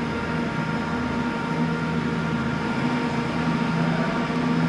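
CrossCountry Voyager diesel multiple unit arriving slowly, its underfloor diesel engines running with a steady drone over a constant hum.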